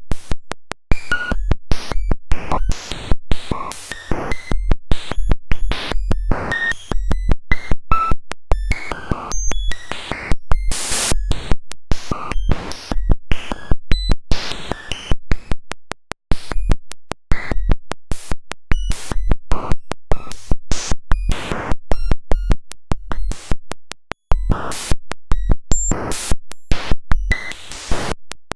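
Harsh synthetic audio made by writing cellular-automaton population counts straight in as waveform samples: a rapid string of short, buzzy segments, each with its own tones or hiss and heavy low thumps, changing every fraction of a second to about a second.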